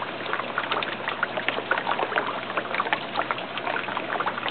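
Tilapia and catfish feeding at the water surface of an aquaponics tank, a steady churning and splashing of water with many small irregular pops and splashes as the fish take floating food pellets.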